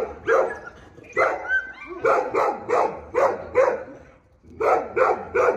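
A dog barking repeatedly in quick runs of about three barks a second, with a short lull about four seconds in.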